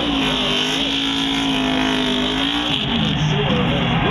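NASCAR stock car's V8 held at high revs during a victory burnout, the rear tyres spinning and smoking. About two and a half seconds in, the engine note drops, then rises and falls as the revs are worked.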